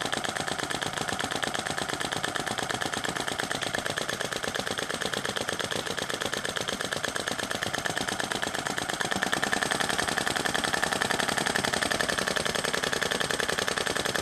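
Sai Hu SH-02 vacuum (flame-licker) model engine running on its wick flame, a fast, even mechanical beat at each stroke. It has just been started and is still warming up, and it grows a little louder about nine seconds in.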